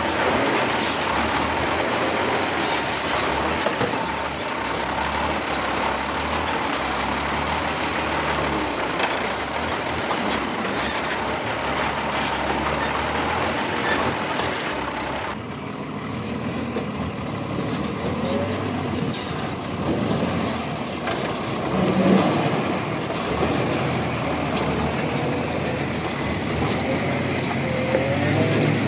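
REO 6x6 army truck driving slowly over rough, rocky ground, heard close up from beneath the chassis: a steady, noisy rumble of engine and running gear. The sound changes abruptly about halfway through and turns duller.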